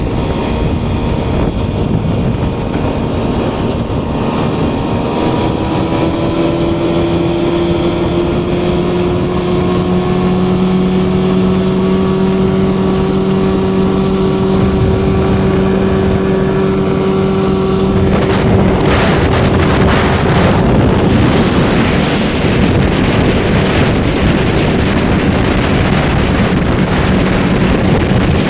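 Suzuki 9.9 outboard motor running at speed on a small boat. Its pitch creeps up a little as it gains revs and then holds steady. From about two-thirds of the way through, a loud rush of wind and water joins it.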